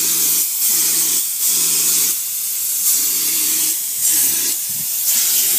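Air spray gun spraying Duratex texture coating: a steady loud hiss of air, with a low hum that comes and goes in short bursts as the gun is worked.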